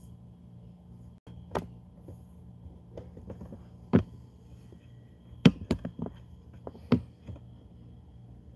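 Handling noise from a camera being shifted on a carpeted floor: scattered knocks and taps, the sharpest about four seconds in and again around five and a half to seven seconds. A faint steady low hum runs underneath.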